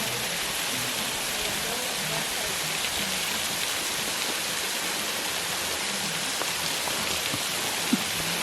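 Steady hiss of a waterfall, water falling and splashing onto rock, with one short sharp tap near the end.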